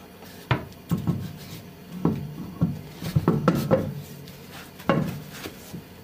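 A car's alloy wheel and tyre knocking and scraping against the hub and wheel arch as it is lifted into place and shifted to line up on the hub: a series of irregular clunks, most of them about three to four seconds in, with another near the end.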